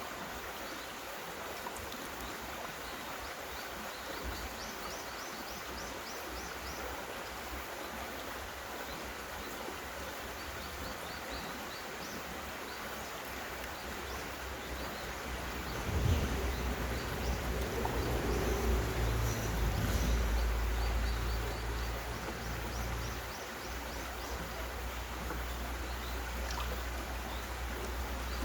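Mountain stream running steadily over rocks, with high chirping calls in quick runs. About halfway through, a low rumble comes in and stays, loudest for a few seconds.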